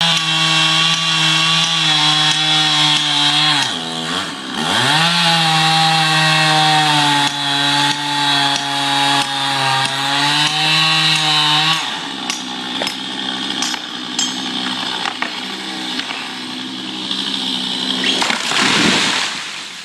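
Chainsaw running at high revs, its pitch dipping sharply about four seconds in and then recovering. About twelve seconds in the note drops lower and quieter, and a brief rush of noise swells just before the end.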